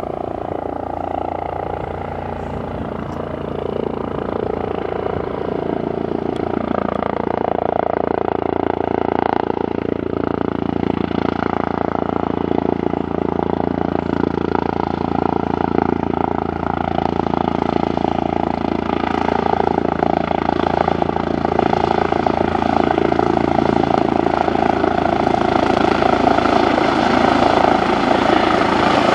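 Airbus H135 twin-turbine helicopter approaching to land: a steady rotor beat with a continuous whine, growing gradually louder as it comes closer.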